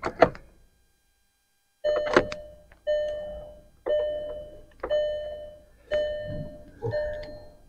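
Car warning chime in a 2008 Volkswagen GTI dinging about once a second, each ding a clear tone that fades out. It starts about two seconds in, after a short stretch of near silence.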